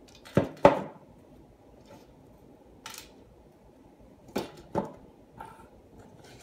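Plastic toilet parts knocked down onto a wooden tabletop: two sharp knocks from the rebuilt canister flush valve being set down near the start, a light click about three seconds in, and two more knocks a little after four seconds as parts are handled.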